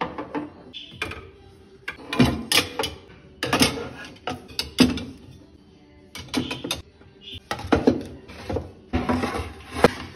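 Irregular clinks and knocks of glass pot lids set into a chrome wire lid rack in a kitchen drawer, with wooden cutting boards knocked in near the end.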